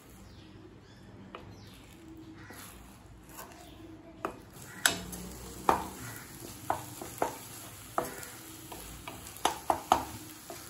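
Beaten eggs sizzling in a kadai while a spatula stirs and breaks them into scrambled curds; from about four seconds in, the spatula scrapes and taps against the pan every half second or so.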